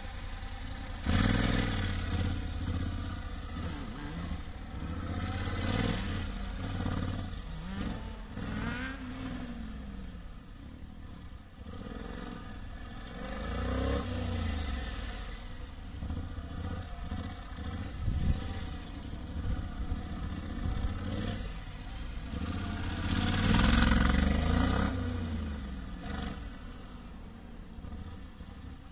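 Honda NC750S DCT's parallel-twin engine revving up and dropping back again and again as the motorcycle is ridden through tight cone turns, with louder bursts of throttle about a second in, near the middle and about three quarters of the way through.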